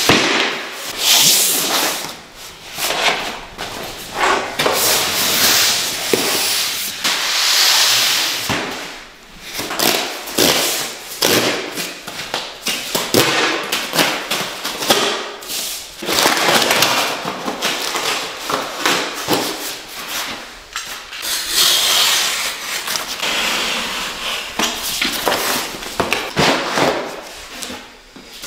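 Cardboard flat-pack boxes being handled and torn open: rustling and ripping of cardboard, with scrapes and knocks as the boxes and a cabinet panel are moved about on a tiled floor.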